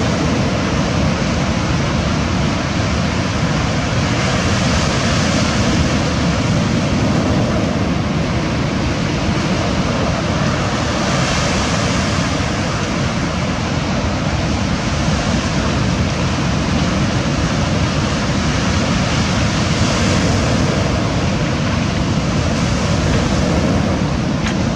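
Ocean surf breaking on a stony shore: a constant rushing of waves that swells a little every several seconds as bigger waves come in.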